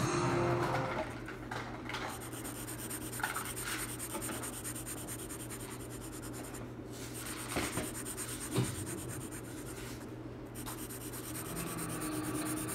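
Felt-tip marker rubbing back and forth on paper, coloring in an area with faint, scratchy strokes.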